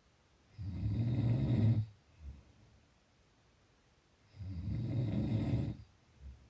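Snoring in sleep: two long snores about four seconds apart, each lasting about a second and a half and each followed by a brief faint breath.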